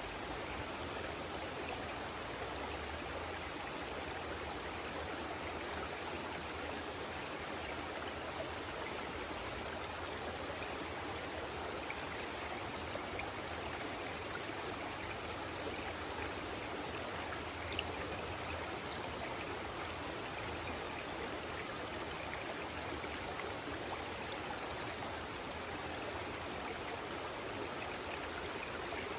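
Stream water flowing steadily, an even rushing sound without pause.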